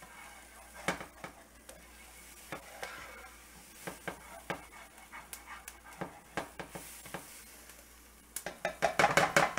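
Red spatula scraping and tapping against a skillet while chopped poblano pepper, onion and garlic sauté with a faint sizzle. Scattered scrapes throughout, then a quick run of louder scrapes near the end.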